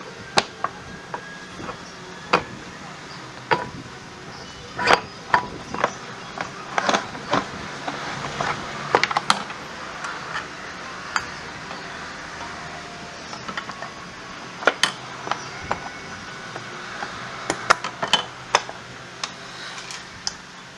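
Irregular sharp clicks and knocks, a dozen or more at uneven spacing, from hand tools and metal parts being handled during scooter rear-wheel and brake work.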